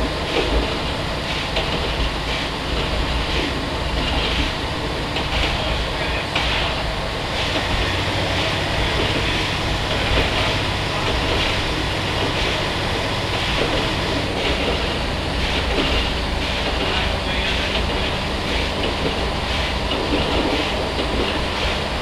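NOHAB 100 series diesel railcar running along the line: a steady engine drone under wheel and track noise, with faint irregular clicks over the rails.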